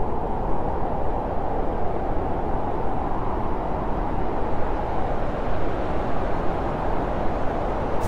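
Steady blizzard wind blowing and buffeting the microphone, an even low rush with no distinct events.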